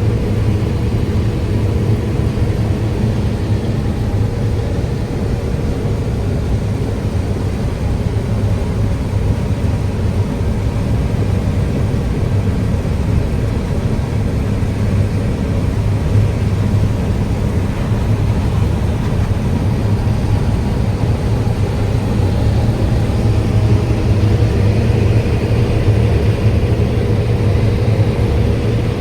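Heavy farm machine's diesel engine running steadily under way, a constant low drone with a thin steady whine above it.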